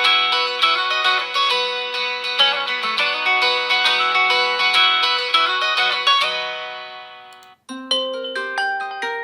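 Xiaomi POCO F2 Pro ringtones playing: a melody of quick, bright notes fades out over its last couple of seconds and stops about seven and a half seconds in, and after a very short gap a second ringtone with a new melody of separate ringing notes begins.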